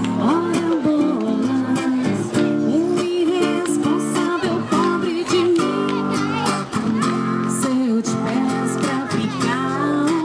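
A woman singing a melody into a microphone while playing an acoustic guitar.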